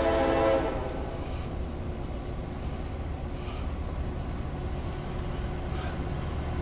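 Diesel locomotive horn of an approaching CSX loaded coal train sounding a chord that cuts off about half a second in, followed by a low steady rumble.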